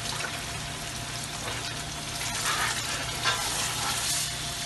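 A hot pan of fried tomato-paste base sizzling as water is poured in and stirred with a spatula, the stirring louder in the second half.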